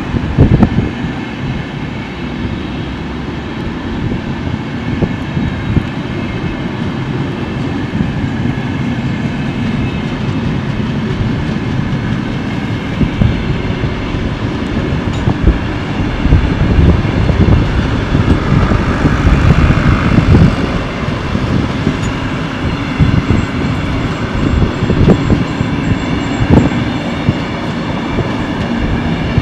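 Passenger coaches of a Finnish express train rolling past as it pulls out of the station: a steady rumble of wheels on rail with repeated clatter as the wheels cross rail joints, the knocks coming thicker in the second half.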